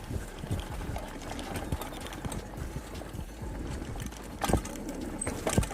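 Freeride mountain bike rolling over a rough dirt trail: a steady low rumble under quick rattling from the chain and frame, with two sharper knocks near the end as it hits bumps.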